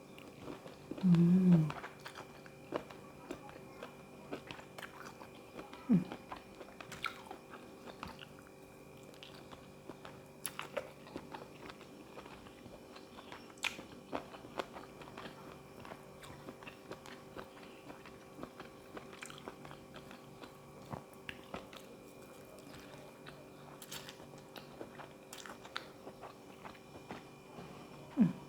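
Close-up eating of a seafood salad of squid, shrimp and cockles: chewing and biting, with many small crunches and wet mouth clicks scattered throughout. A short hummed 'mm' comes about a second in, over a faint steady hum.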